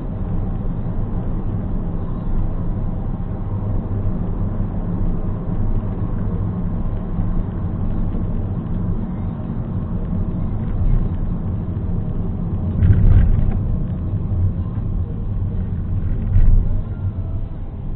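Steady low rumble of a car driving, heard from inside the car, with two brief louder bumps in the last third.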